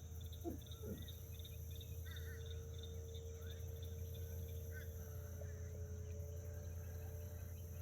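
Faint outdoor nature sounds: scattered short bird chirps over a rapidly pulsing insect trill, with a thin steady tone and a low hum underneath.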